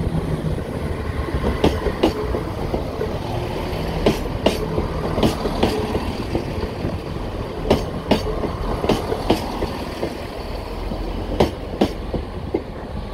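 Class 170 diesel multiple unit running past close at low speed: a steady low rumble from its diesel engines and wheels, broken several times by a pair of sharp clicks as a bogie's wheelsets cross a rail joint.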